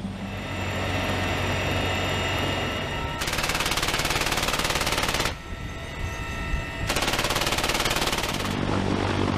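Steady helicopter cabin noise with a thin whine, then a door-mounted heavy machine gun firing two sustained bursts of about two seconds each, roughly a second and a half apart, over the rotor and engine noise.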